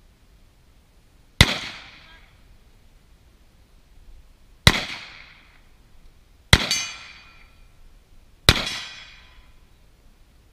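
Four single carbine shots, irregularly spaced one to three seconds apart, each followed by an echo that dies away over about a second.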